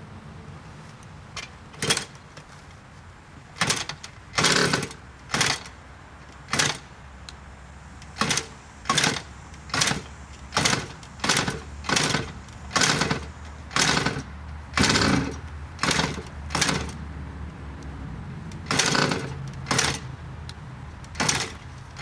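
Suzuki RM60 two-stroke dirt bike being kick-started over and over, about two dozen short bursts of the engine turning over roughly once a second with a pause past the midpoint. It does not catch and run.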